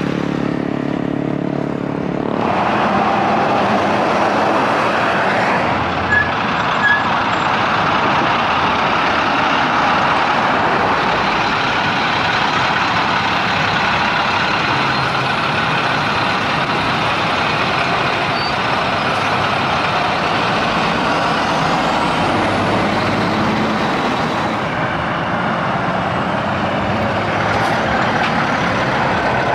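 Highway traffic passing close by: the noise of heavy trucks and a bus, their tyres and diesel engines. In the first two seconds a small motorcycle's engine is heard pulling away, and two short sharp clicks come about six and seven seconds in.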